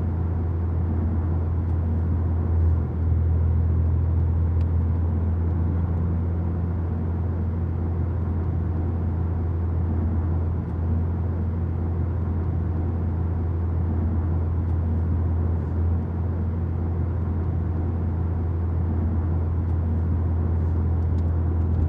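A steady, low droning rumble with a hum at its base and a faint hiss above, holding unchanged throughout.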